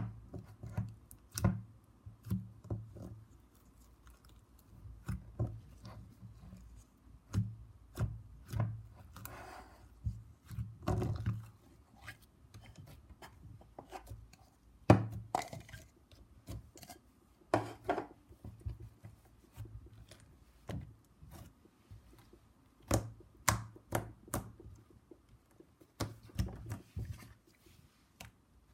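Slime being squeezed and poked by hand: irregular sticky clicks and pops, with a few longer squelches.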